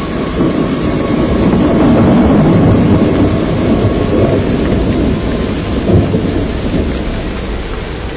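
A loud low rumble that swells over the first few seconds and then eases, with a sudden thump about six seconds in.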